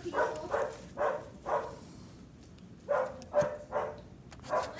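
A dog barking: about eight short barks in two bunches, with a pause of over a second between them.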